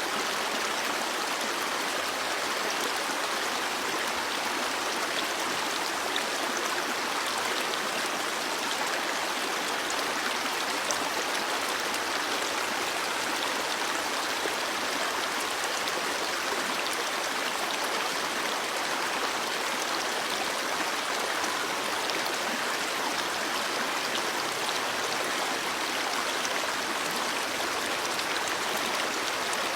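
Stream water flowing and babbling steadily, an even rushing hiss with no break.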